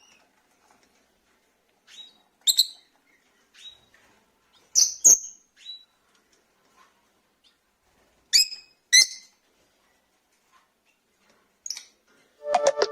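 Rosy-faced lovebirds (Agapornis roseicollis) giving short, shrill chirping calls, singly and in quick pairs, a few seconds apart. Near the end a brief louder sound made of several steady tones comes in.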